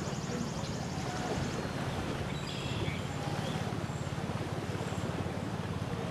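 Lakeshore ambience: steady wind buffeting the microphone over small waves lapping the sandy shore, with a few brief high bird calls about halfway through.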